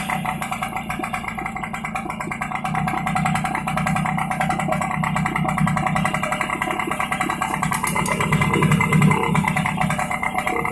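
TVS XL Super Heavy Duty moped's single-cylinder engine running steadily while its carburettor is being tuned.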